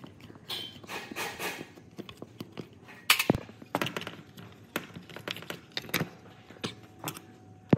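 Irregular knocks, clinks and scrapes of metal parts and hand tools being handled during work on a demolition hammer, with a sharp knock about three seconds in.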